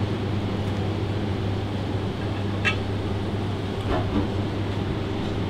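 Steady low hum of commercial kitchen ventilation, with two light clicks around the middle.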